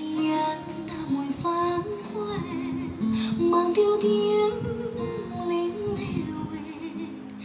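A song with a female voice singing over acoustic guitar, played through the Bluedio CS4 two-speaker Bluetooth stereo speaker. It comes out clear in the highs and mids but light on bass.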